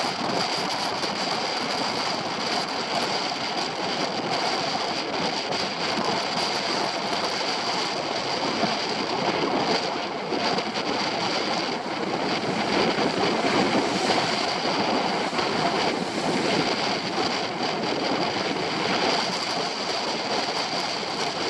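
Steady rush of water and spray from the Hobie Tiger F18 catamaran's hull slicing through choppy water at speed in strong wind, mixed with wind noise on the mast-mounted camera's microphone, swelling a little around the middle.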